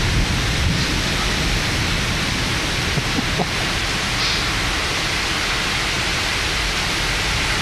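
Heavy thunderstorm rain pouring down in a steady, even rush, with a low rumble underneath.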